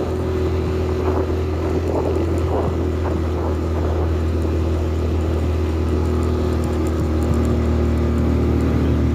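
A vehicle's engine running at a steady pace, a low even hum, growing slightly louder toward the end.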